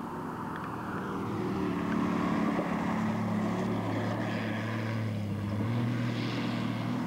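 Car engine running at steady revs, its low drone growing stronger about three seconds in as the car drives past.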